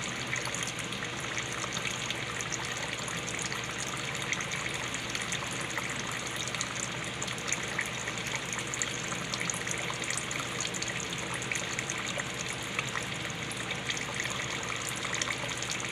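Water pouring in a steady stream, with small splashes throughout.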